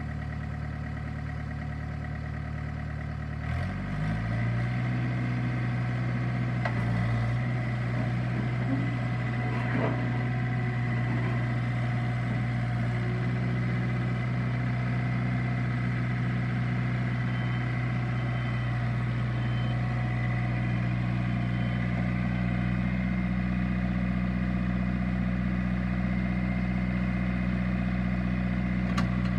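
John Deere 110 backhoe loader's diesel engine running steadily. About four seconds in, its speed steps up a little and then holds even.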